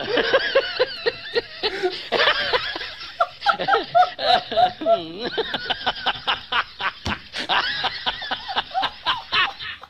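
A man laughing hard and without stopping, in runs of rapid 'ha' pulses, about three or four a second in the middle, turning to faster, breathier pulses in the second half.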